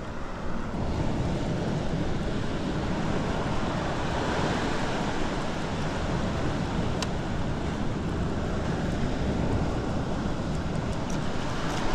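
Steady rushing of wind on the microphone mixed with sea noise, with no distinct engine tone.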